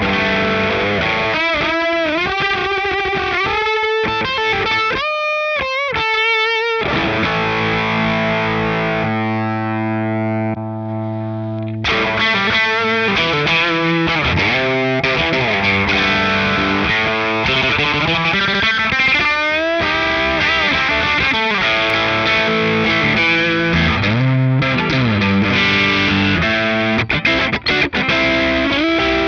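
Les Paul electric guitar played through a Strymon Compadre with its boost in dirty (overdrive) mode plus compression: distorted lead lines with string bends and vibrato, a chord held for a few seconds about ten seconds in, then faster runs, with a few short choppy stops near the end.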